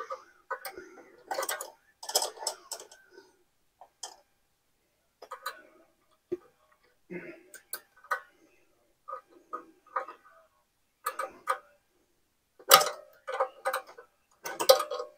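A hand wrench working a small bolt on a Honda EU3000is generator's metal bracket: irregular metallic clicks and ticks in short clusters, the loudest near the end.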